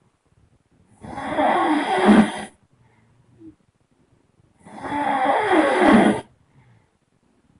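A person snoring loudly: two long snores, each about a second and a half, with a wavering pitch and near silence between them.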